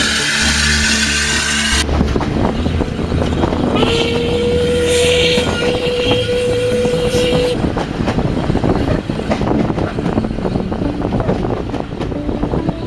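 About two seconds of music, then the ride behind a steam tank engine heard from an open carriage window: a steady rumble with rapid clicks of the wheels over the rail joints. About four seconds in, the locomotive's whistle sounds one long steady note for three to four seconds.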